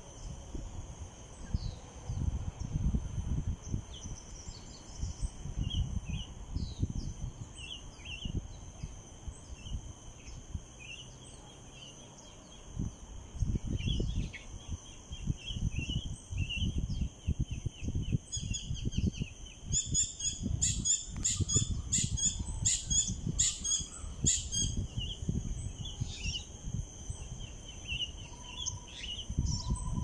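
Birds calling in short, scattered chirps, with a loud series of about a dozen evenly spaced, repeated call notes about two-thirds of the way through. A low gusty rumble runs underneath.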